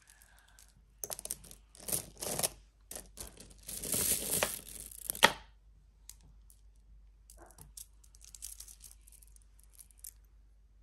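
Rustling and crinkling of packaging handled by hand, in several noisy bursts over a few seconds, with one sharp click about five seconds in, then faint small clicks and taps.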